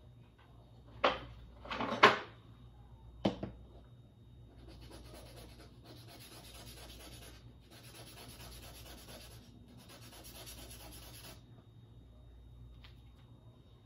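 Three sharp knocks of handling near the start, the loudest sounds here. Then a glue applicator stick is rubbed on an abrasive sanding pad in four long strokes to clean dried glue off its tip.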